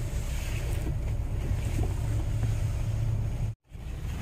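Low, steady rumble of a van heard from inside the cabin. It cuts out abruptly to silence for a moment about three and a half seconds in.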